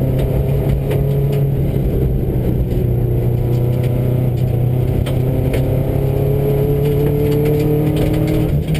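Subaru rally car's flat-four engine pulling hard at speed, heard inside the cabin, its note rising gently over the last few seconds with a brief dip near the end. Gravel ticks and clatters against the car.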